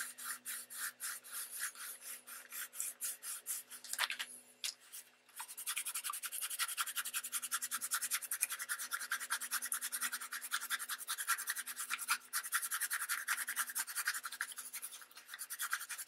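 Soft cloth, damp with a water and rubbing alcohol mix, rubbed quickly back and forth over embossed magazine paper, lifting the ink off the raised areas. Even strokes about three a second, a short break about four seconds in, then faster, steadier rubbing.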